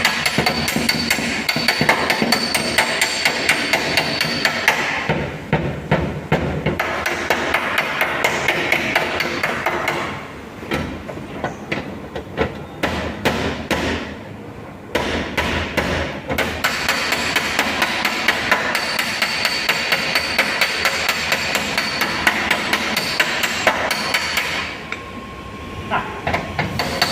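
Rapid hammer blows on the sheet metal of an Audi A3 front fender, panel-beating out the damage, with a bright metallic ring. The strikes thin out and get quieter for a few seconds midway and pause briefly near the end.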